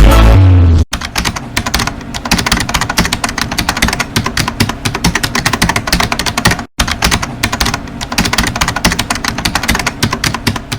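Rapid, dense clicking like fast typing, with a brief gap just after the middle.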